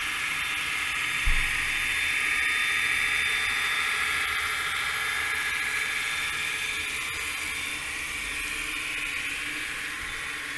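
A small high-speed motor running with a steady high-pitched whine, with a single low thump about a second in.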